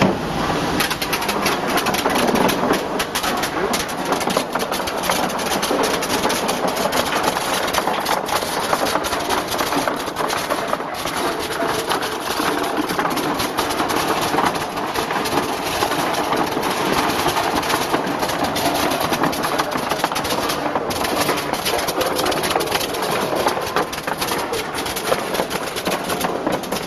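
CCD optical color sorter running while sorting garlic cloves: a steady mechanical rush with dense, irregular clicking.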